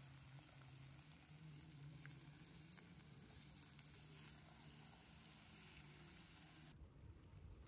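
Faint sizzling of pork belly frying on a grill pan over a portable gas stove, with a few light clicks. Near the end the sizzling cuts off abruptly, leaving a low rumble.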